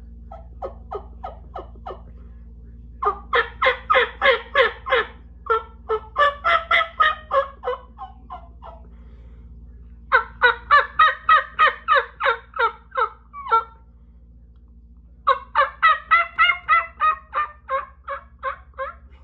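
Hen turkey yelps, or yips, blown on a stacked-frame diaphragm mouth call: two latex reeds set between separate frames and stretched loose. The yelps come in four runs of about four notes a second. The first run is soft, and the runs from about three seconds in are much louder.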